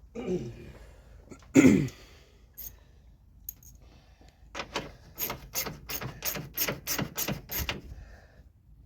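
A ratchet wrench clicking in quick, even strokes, about three a second for some three seconds, running down a 12 mm bolt on a radiator upper mount. Two knocks of metal tools come before it, the second the loudest.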